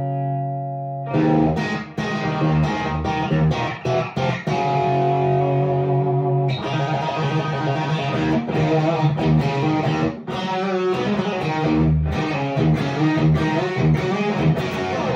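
Stratocaster electric guitar with single-coil pickups played through a Fat Monday overdrive pedal into a Marshall amp, lightly overdriven. A held chord rings out, then about a second in he strums chords and picked riffs, with brief stops along the way.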